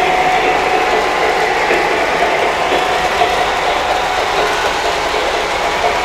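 O scale model freight train rolling past on three-rail track: a steady rattling and clicking of the cars' metal wheels and trucks over the rails. A faint steady whine fades away about halfway through.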